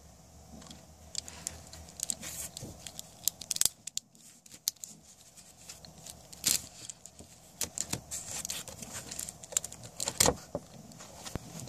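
Small plastic Takara G1 Cliffjumper keychain figure being handled and transformed by hand: scattered clicks, taps and rattling of plastic parts as they are folded, with one sharp snap about ten seconds in.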